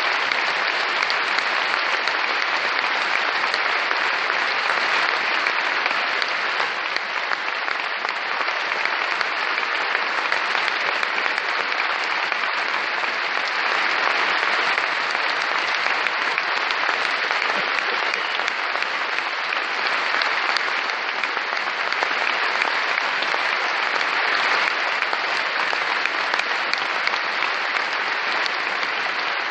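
A large audience applauding steadily and at length, with slight swells and dips.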